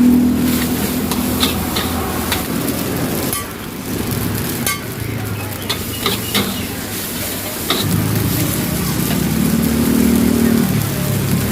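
Nasi goreng frying in a wok: sizzling, with a metal spatula scraping and clinking against the pan. A low droning hum comes and goes under it, near the start and again from about 8 s.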